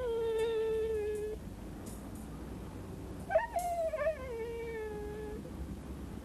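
A wolf howling twice, in long calls that fall slightly in pitch. The first howl is already under way and ends about a second and a half in. The second starts about three seconds in and slides down before it fades.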